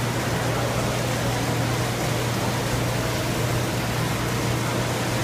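Steady equipment noise in a bourbon distillery's fermenting room: an even hiss with a steady low hum underneath.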